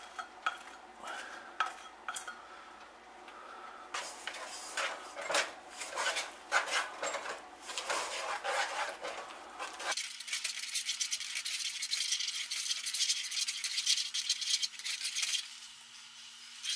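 Wooden spoon scraping and knocking against a metal cooking pot while stirring sugar and corn syrup. About ten seconds in it gives way to a denser crackling hiss of the syrup heating and bubbling, which stops shortly before the end.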